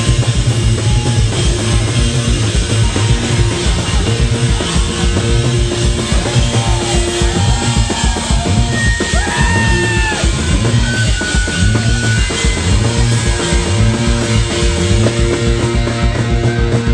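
Rock band playing live and loud: electric guitars over a steady drum-kit beat, with some gliding high notes in the middle.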